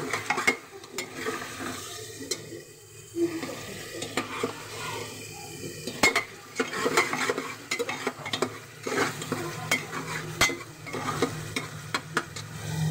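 Spiced curd masala sizzling and frying in an open aluminium pressure cooker while a metal ladle stirs and scrapes through it, with repeated clicks and taps of the ladle against the pot. The masala is being roasted until its ghee rises to the top.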